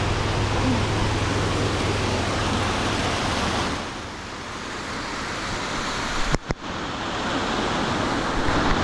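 Mountain stream rushing in a steady hiss, quieter for a few seconds from about 4 s in. A brief knock and dropout comes about six and a half seconds in.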